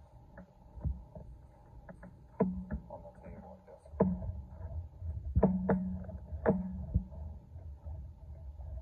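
Irregular knocks and clunks from a pulley-cable wrist and finger workout with a rotating wrist-ball handle, several of them followed by a brief low ring, over a low rumble.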